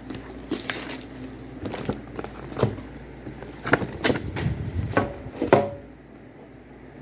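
Hands opening a cardboard box of Pokémon cards: rustling, with scattered irregular clicks and knocks of the packaging being handled, busiest about halfway through.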